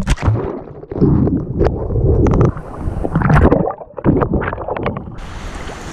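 Water sloshing and gurgling around a camera dipped into the sea, heard muffled as if from under the surface, with knocks against the housing. About five seconds in the sound opens into an even hiss of wind and surf as the microphone comes back up into the air.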